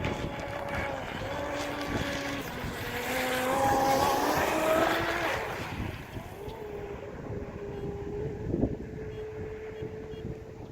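Pro Boat UL-19 RC outrigger's brushless electric motor whining as the boat runs on the water. Its pitch steps up and down with the throttle, and it is loudest about four seconds in, then settles to a quieter steady tone. Wind noise on the microphone throughout.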